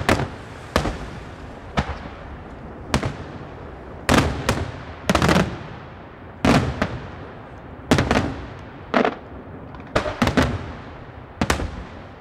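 Daytime aerial fireworks shells bursting in a steady string of loud, sharp bangs, roughly one or two a second with some in quick pairs, each trailing a brief echo.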